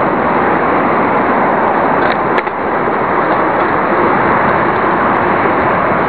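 Loud, steady wind noise rushing over the microphone of a camera on a moving bicycle, with a brief click a little over two seconds in.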